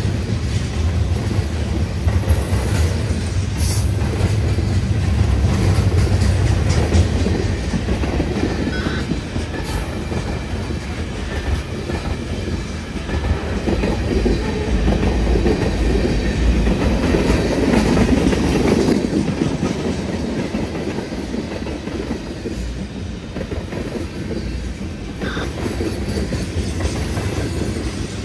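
Long CN freight train rolling past: a steady rumble of steel wheels on the rails, with a sharp click now and then.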